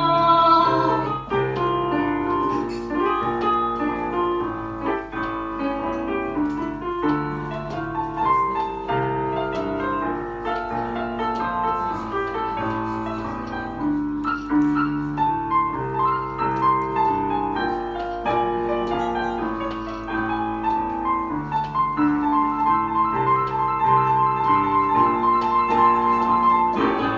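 Instrumental music led by piano: a piano interlude playing a steady flowing run of notes between sung verses.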